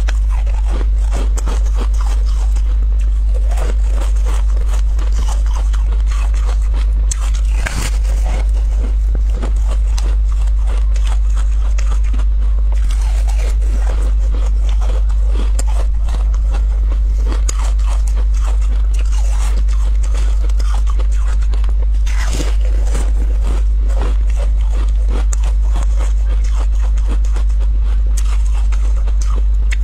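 Crunching and biting into chunks of frozen yellow ice, with many sharp crackles and crunches, over a steady low hum.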